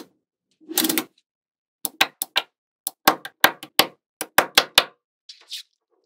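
Magnetic balls clicking as prebuilt strips of them snap together one after another: a brief rattling scrape about a second in, then a run of about fourteen sharp clicks, with a soft rustle of balls near the end.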